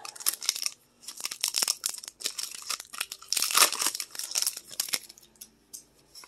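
Foil wrapper of a Pokémon TCG Brilliant Stars booster pack crinkling as it is handled and torn open, loudest about three and a half seconds in, then dying down to a soft rustle of the cards near the end.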